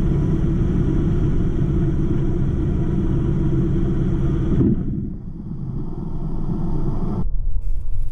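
Cessna 150's engine, a low steady rumble heard from the cabin. It changes abruptly twice: about two-thirds of the way in the higher part of the sound drops away, and near the end only a deep rumble is left.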